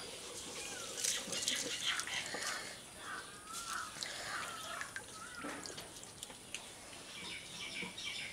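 A hand stirring spiced tamarind water (fuchka pani) in a glass bowl, with soft liquid swishing and dripping and a few light clicks.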